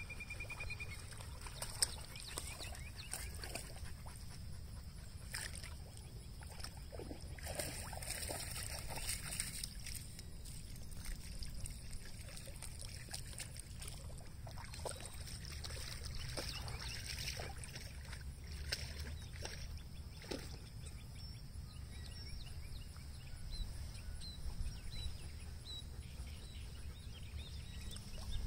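Huskies wading and swimming, with light irregular water splashing and sloshing over a steady low outdoor rumble, the busiest splashing about a third of the way in. A few faint high chirps near the end.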